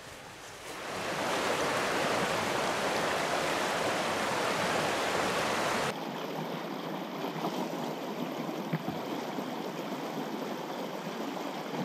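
Rushing water of a small, fast rocky creek running over rapids and around boulders. The steady rush swells about a second in and then drops abruptly to a quieter rush about six seconds in.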